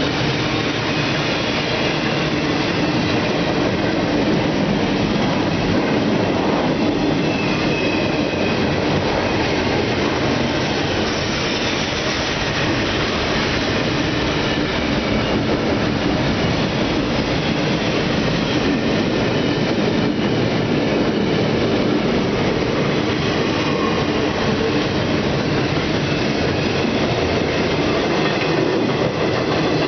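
BNSF double-stack container train rolling past, a steady rumble of wheels on rail with faint high wheel squeal now and then, mixed with the hiss of pouring rain.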